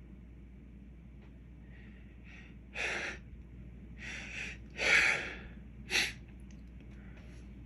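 A man's sharp, noisy nasal breaths and gasps set off by inhaled white pepper: four short bursts a few seconds in, the loudest just past halfway and a quick snort after it.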